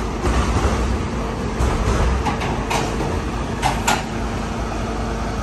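City street traffic: a steady low engine rumble with a faint steady hum. From about a second and a half in, a few short clicks or knocks sound over it.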